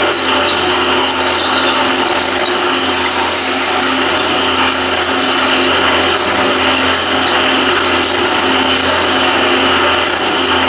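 Twin-shaft shredder running with a steady, even drone from its drive, its interlocking cutter discs turning and chewing small plastic pieces.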